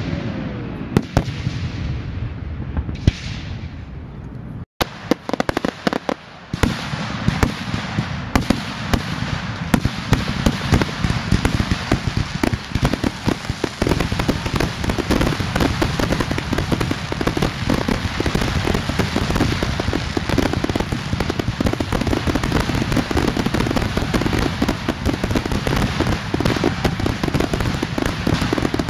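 Aerial fireworks: a few separate bangs, then from about five seconds in a dense, unbroken barrage of shells bursting and crackling.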